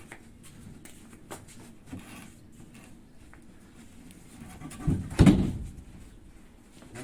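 Handling noise from sofa parts being moved during repair: faint knocks and rustling, then one loud, dull thump about five seconds in.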